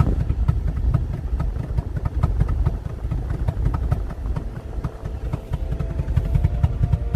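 A 2008 Cadillac CTS4 running, with a heavy uneven rumble and many short sharp knocks. Steady tones join about four and a half seconds in.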